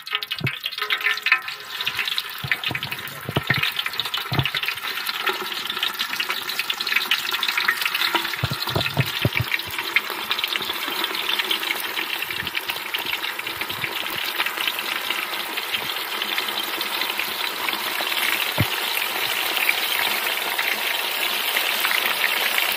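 Beef vadai (lentil-and-minced-beef fritters) deep-frying in hot oil in a large aluminium pan: a dense crackling sizzle with scattered sharp pops as the balls go in, building slowly to a steady sizzle.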